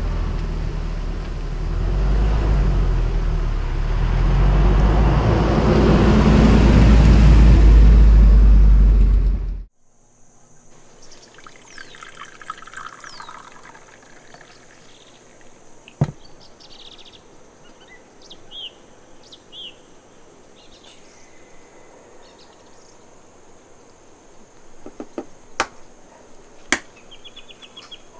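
1988 Toyota 4x4 van driving across a paved lot, its engine getting louder as it comes nearer, pitch rising and falling, then stopping suddenly about ten seconds in. After that a quiet steady chorus of crickets with a few bird chirps and occasional sharp clicks.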